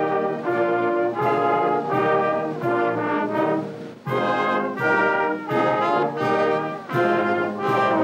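Brass band of horns and tubas playing a slow tune in held chords, with a short breath between phrases about four seconds in.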